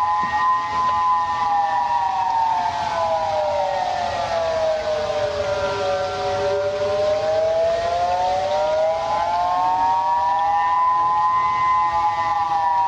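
Outdoor warning siren sounding a slow wail, several tones together. The pitch falls over about six seconds and climbs back up over the next five.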